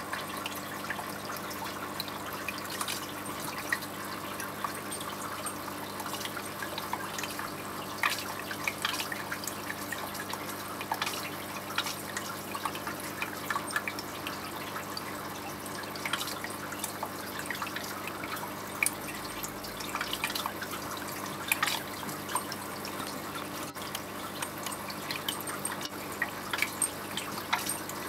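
Aquarium water trickling and bubbling, with frequent small drip-like splashes over a steady low hum, as from the tank's filter or pump running.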